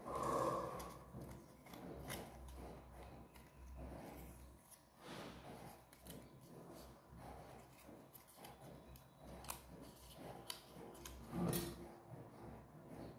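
Small printed paper model pieces being handled and folded by hand: faint, irregular paper rustling and crinkling with small clicks, louder just after the start and again near the end.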